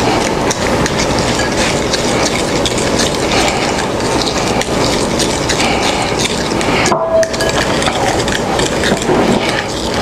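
A plastic spoon stirring a liquid marinade in a glass bowl, with continuous rapid clicking and scraping against the glass and liquid sloshing. The stirring breaks off briefly about seven seconds in.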